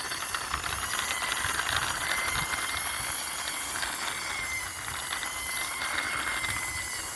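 Large plastic toy car being pushed along by hand, its wheels rolling with a steady rattling hiss and a faint thin whine.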